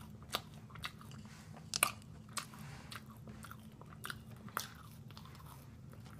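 Close-up chewing of crispy fried chicken: a scatter of short, sharp crunches between quieter chewing, the loudest about two seconds in.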